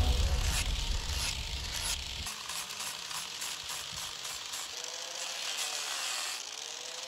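Angle grinder with a sanding disc sanding a white pine carving: a steady hiss of abrasive on wood, with the motor's pitch sagging and recovering a few times in the second half.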